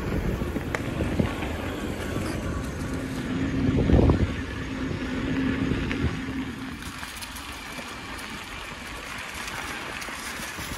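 Wind rushing over the microphone of a camera riding on a moving bicycle, with tyre noise from the crushed-gravel trail. A low steady hum sounds for a few seconds in the middle, and the rumble eases after about six and a half seconds.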